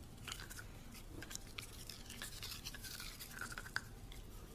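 Faint scrubbing and clicking of a toothbrush's bristles on a dog's teeth as its teeth are brushed.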